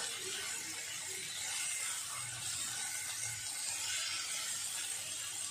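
Masala-coated chicken pieces sizzling in a non-stick pan while a silicone spatula stirs and turns them, scraping against the pan.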